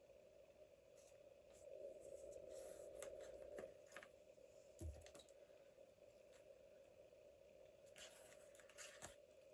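Faint rustling and scratching of paper and washi tape being handled while a journal page is decorated, with a soft tap about five seconds in. A low steady hum sits underneath.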